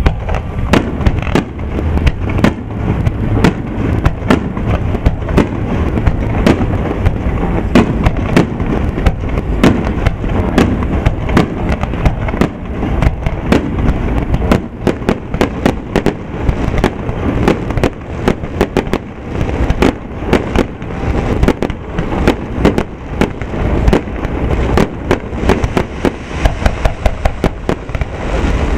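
Aerial fireworks firing in a rapid barrage: a dense, unbroken run of loud bangs and cracks, several every second, over a continuous low rumble.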